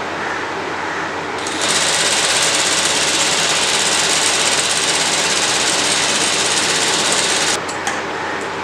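Industrial single-needle lockstitch sewing machine running at a steady speed, stitching a seam through a folded fabric strip, from about a second and a half in until near the end. It stops abruptly, followed by a few sharp clicks from scissors snipping the thread.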